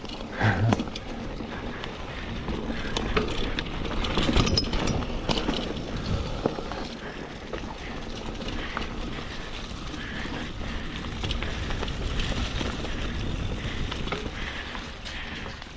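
2020 Schwinn Axum mountain bike being ridden on a dirt trail: tyres rolling, with the bike knocking and clicking over bumps.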